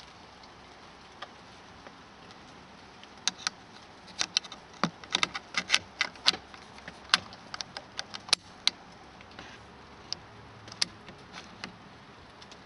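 Bolt action of an SDM 98-K .22 LR rifle, a Mauser 98 copy, being worked by hand. A quick run of sharp metallic clicks and clacks starts about three seconds in and thins to a few last clicks near the end.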